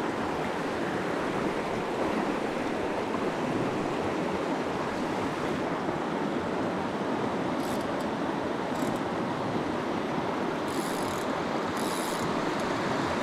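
Creek water rushing steadily close to the microphone, with a few short higher-pitched rasps in the second half.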